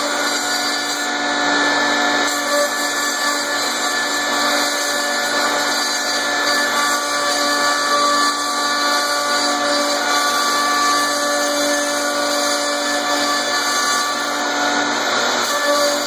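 Precix Industrial 11000 CNC router carving lettering into a sheet: the spindle and cutter make a steady whine of several held pitches over an even cutting noise, without a break.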